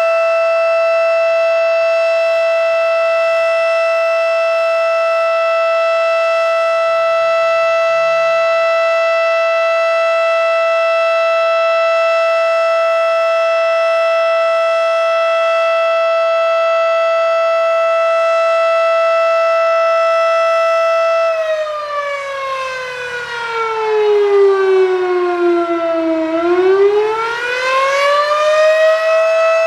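Federal Signal Model 5 outdoor warning siren sounding a loud, steady tone with many overtones. About two-thirds of the way through, the pitch sinks to about half over some five seconds, then climbs back up to the steady tone near the end.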